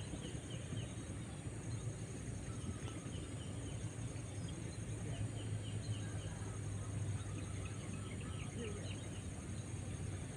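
Outdoor ambience of birds chirping in quick repeated series of short notes, over a steady high insect drone and a low steady rumble.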